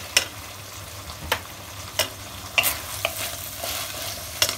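Onion, tomato and capsicum being stirred with a spatula in a hot pan with chilli sauce, ketchup and soy sauce. A steady sizzle runs under about six sharp knocks and scrapes of the spatula against the pan.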